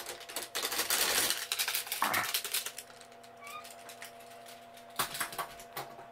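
Hard objects clattering and rattling for about two and a half seconds, then a few knocks near the end, over a faint steady hum.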